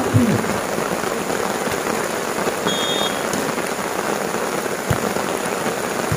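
Steady rain falling on surfaces, an even hiss throughout, with two dull low thumps near the end.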